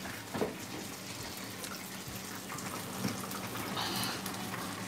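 Battered fish deep-frying in a pot of hot oil: a steady sizzle, with a couple of light clicks about half a second and three seconds in.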